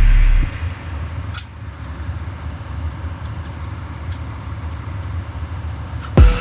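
Music breaks off about half a second in, leaving a steady low mechanical hum with a faint hiss. The music comes back loudly near the end.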